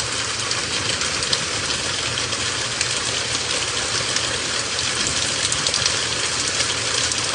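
Steady heavy rain falling: a dense hiss thick with the patter of drops, over a low steady rumble.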